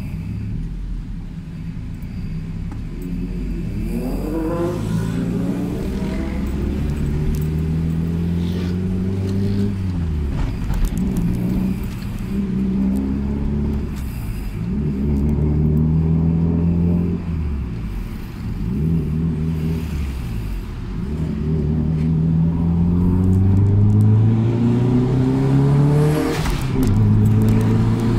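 Toyota Celica ST205's turbocharged 3S-GTE inline-four, heard from inside the cabin, pulling away and accelerating through the gears: the engine note climbs, drops back at each shift and climbs again several times. The exhaust has just been repaired.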